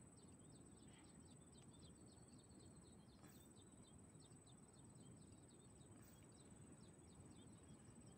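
Faint outdoor quiet: many quick, high chirps of small birds over a low hiss, with a thin, steady high-pitched whine.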